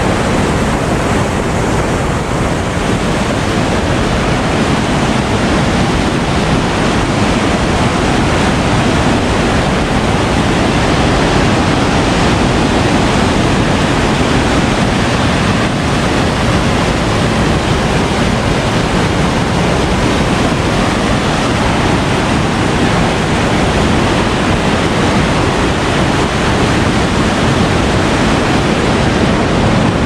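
Whitewater rushing over a river weir: a loud, steady rushing noise that never lets up.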